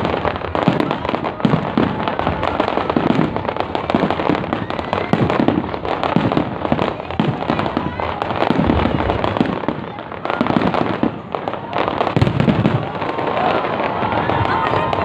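Fireworks display going off without pause: a dense stream of bangs and crackles, easing off briefly about ten seconds in before picking up again.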